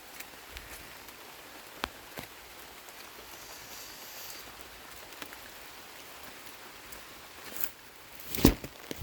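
Light rain: a steady hiss with scattered drops tapping, and a louder cluster of knocks near the end.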